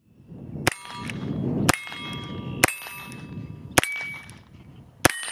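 Five shots from a Heritage Rough Rider .22 revolver with a 16-inch barrel, about a second apart. Each crack is followed by a brief metallic ring as a round strikes a steel target.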